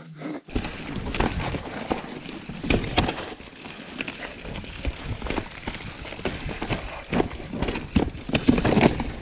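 Mountain bike running downhill on a wet, muddy, rooty trail, with a steady rush of tyres through mud and leaves and frequent knocks and rattles as the bike bounces over roots. Picked up by the rider's on-board action camera.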